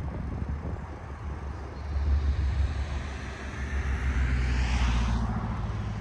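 A motor vehicle passing close by: its engine and tyre noise swells, falls in pitch as it goes past about five seconds in, then drops away. Wind rumbles on the microphone.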